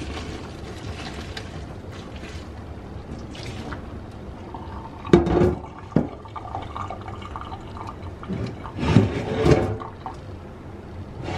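Hot water and boiled wet noodles pouring from a pot into a perforated metal colander in a sink, then splashing and draining steadily. A few sharp metallic clanks come about halfway through, and louder ones shortly before the end.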